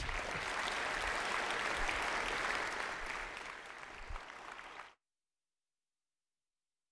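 Audience applauding, thinning out after about three seconds and cutting off abruptly to dead silence about five seconds in.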